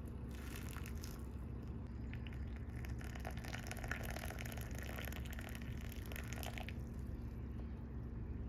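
Hot water poured from a kettle into a ceramic mug over a tea bag, the stream splashing as the mug fills. A brief first pour is followed by a longer steady pour that stops about seven seconds in.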